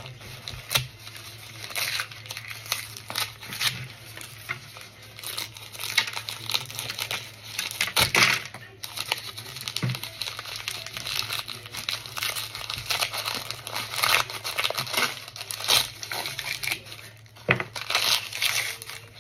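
Chunks of oven-baked cornstarch being crunched: a run of irregular, crisp crackles with sharp snaps scattered through it.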